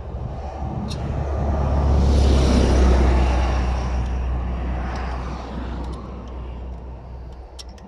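A vehicle passing on the highway close by. It builds to a peak about two to three seconds in and fades away over the next few seconds, with a low rumble under it.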